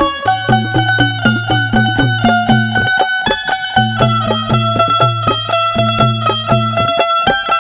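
Instrumental break in a Haryanvi nirgun bhajan: a fast, steady drum beat under a melody of long held notes that step up and down, with no singing.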